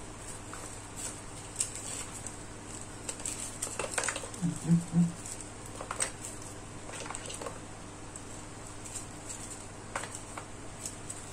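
Hands handling a clear plastic bag of spare drone propellers and a small cardboard box: soft plastic rustling and light clicks and taps. About halfway through come three short low-pitched hums, the loudest sounds.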